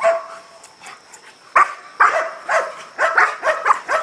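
Large shepherd-type dog barking aggressively on its tether at a helper with a bite sleeve during protection (guard) training. One bark at the start, then after a short lull a run of loud barks that come faster, several a second, near the end.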